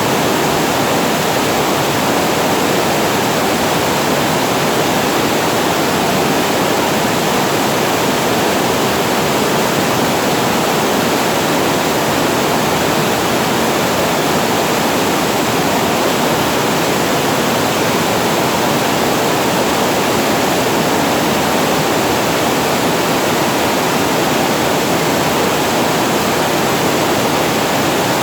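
Water pouring over a weir spillway: a steady, loud rush of falling water with no change.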